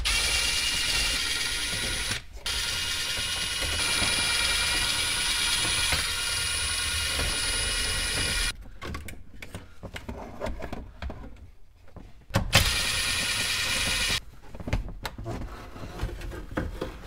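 Ridgid 18-volt cordless drill spinning out the 7 mm bolts that hold a factory radio in the dash: a steady motor whine in long runs with short pauses, and a shorter run about twelve seconds in. Near the end, quieter knocks and rattles as the loosened radio is pulled out of the dash.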